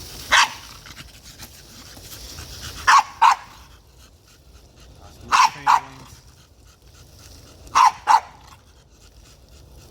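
A dog barking: one bark, then three double barks repeated about every two and a half seconds.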